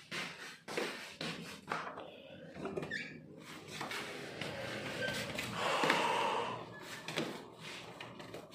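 A hotel room door being opened by its metal lever handle, with clicks and knocks, a plastic bag rustling in the hand, and a louder rustling sound lasting about a second around six seconds in.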